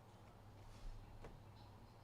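Near silence: room tone with a steady low hum and a couple of faint soft clicks, the loudest a little under a second in.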